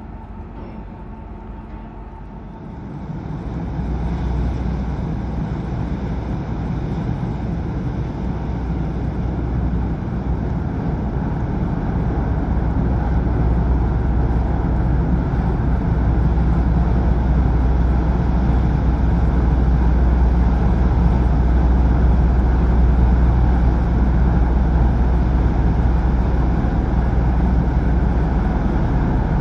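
Cruise ship Sirena's propulsion starting up to pull away from the berth: a deep, steady rumble that sets in about three seconds in and slowly grows louder.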